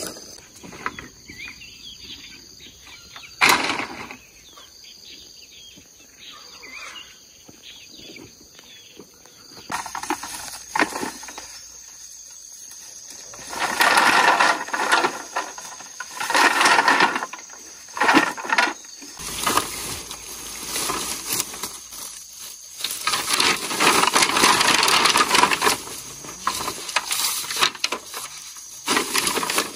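Green bamboo poles knocking and clattering against each other as they are gathered and bundled, with dry bamboo leaves and grass rustling. The handling comes in loud bouts, with one sharp knock a few seconds in.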